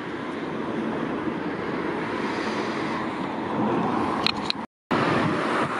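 Steady road and running noise of a car being driven, heard from inside the car. A little past four seconds there are two short clicks, then the sound cuts out abruptly for a moment and the running noise comes back.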